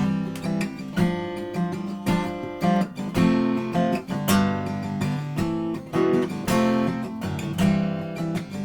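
Blueridge BR-160A dreadnought acoustic guitar being strummed: a run of chords, each stroke ringing on into the next.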